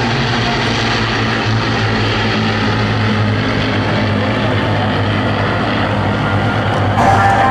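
Steady drone of an Avro Lancaster's four Rolls-Royce Merlin piston engines, flying past in formation with its Hurricane and Spitfire escort. Music cuts in suddenly just before the end.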